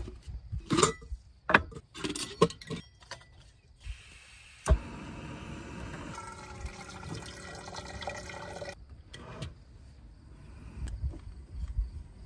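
A small canister camp stove with its insulated cook pot: the pot and lid are handled with a run of clicks and light knocks. About halfway through, a sharp click brings in a steady hiss that lasts about four seconds and then cuts off, followed by more light clicks.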